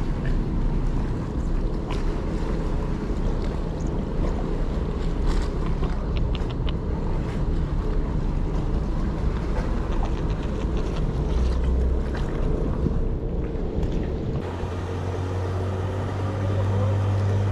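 A steady low mechanical drone with wind noise on the microphone and a few light clicks partway through. Near the end it changes abruptly to a deeper, stronger hum.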